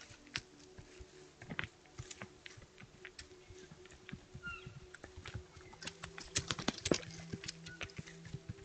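Elk walking through tall grass close by: an irregular run of footfalls and grass rustles, densest and loudest about six to seven seconds in.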